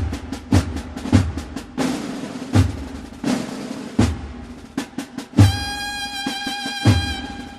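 Drum and bugle band (tambores y cornetas) playing: snare drum rolls and heavy bass drum beats, with the cornets coming in about five seconds in on a long held note.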